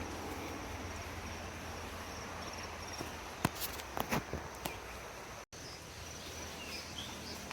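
Insects chirping steadily over an outdoor woodland background with a low rumble. A quick cluster of about six sharp clicks, the loudest sounds here, comes about three and a half seconds in. The audio drops out for an instant at about five and a half seconds.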